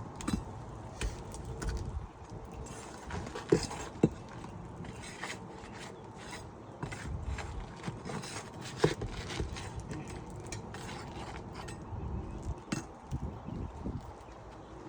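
Metal hand tool working roofing nails out from under asphalt shingles: irregular clicks, scrapes and taps, with a few sharper knocks about three and a half, four and nine seconds in.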